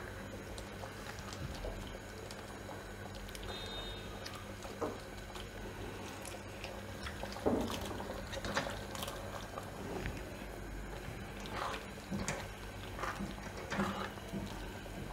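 Boiled pasta tipped from a bowl into a pan of thick white sauce and stirred in with a silicone spatula: soft wet squelches with scattered light taps and scrapes against the pan, over a faint steady hiss.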